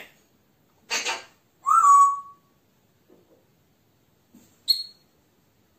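African grey parrot whistling: a short raspy sound about a second in, then a loud whistle that rises and holds briefly, and a brief high chirp near the end.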